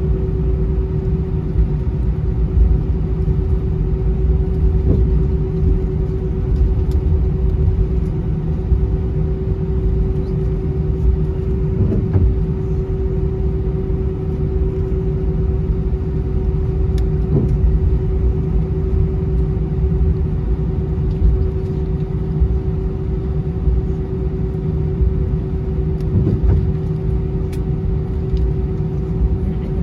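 Airbus A320-232 cabin noise on the ground before takeoff: a steady low rumble with a constant hum over it.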